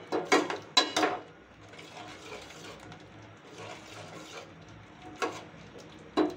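Steel ladle scraping and knocking against a stainless steel pan while stirring thick, crumbly palkova: a quick run of sharp clatters in the first second, another about five seconds in, and more near the end.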